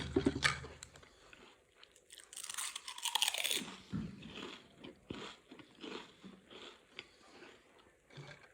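Potato chips being bitten and chewed: a sharp crunch at the start, a louder stretch of crunching a little past two seconds in, then softer chewing crunches that thin out toward the end.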